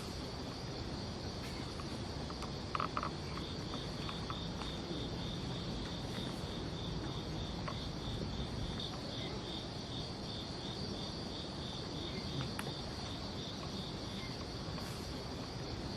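Night insects chirping steadily: a continuous high trill and a second, pulsed chirp repeating a few times a second. Underneath is a low steady noise, with a couple of faint clicks about three seconds in.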